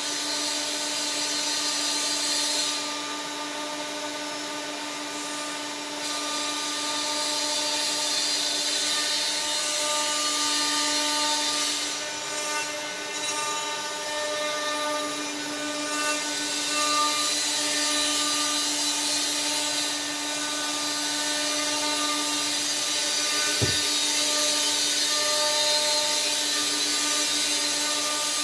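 Workshop machinery running steadily: a constant hum with a steady low tone and a high hiss, and a single dull thump near the end.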